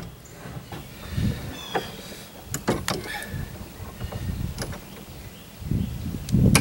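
Clamps being handled and tightened on a wooden boat transom: scattered knocks and clicks with a few short squeaks, and a heavier low thump near the end.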